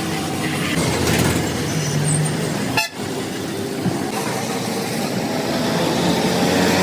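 Street traffic with vehicle horns sounding, a steady din with short held tones. It breaks off abruptly about three seconds in, then carries on.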